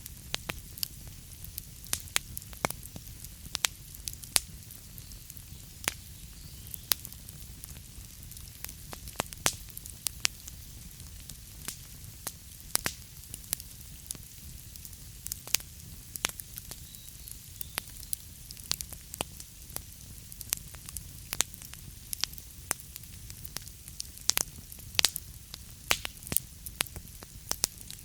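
Wood fire burning in a fireplace: a steady low rumble and hiss of flame with sharp, irregular crackles and pops of the burning wood, several a second.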